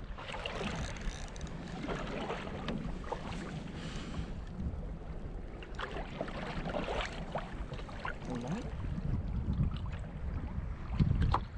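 Wind buffeting the microphone and choppy sea water lapping and slapping against a kayak hull: a steady low rumble with scattered small splashes and clicks.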